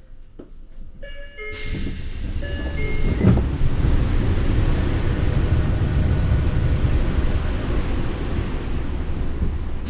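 Train noise that jumps suddenly, about one and a half seconds in, to a loud steady rumble and hiss, with short steady tones at several pitches near the start.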